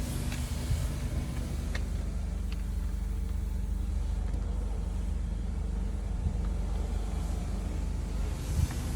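Car engine running steadily, a low even hum with a few faint clicks.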